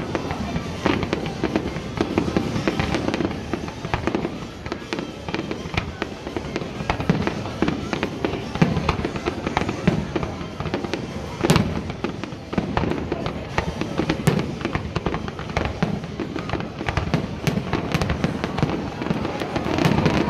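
Fireworks display: a continuous rapid run of bangs and crackling from many bursting shells, with louder single booms about eleven and a half and fourteen seconds in.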